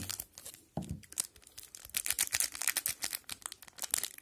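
Plastic wrapper of a 2020-21 O-Pee-Chee hockey card pack crinkling and tearing as it is opened by hand: a dense run of sharp crackles, busiest in the second half, with a soft bump about a second in.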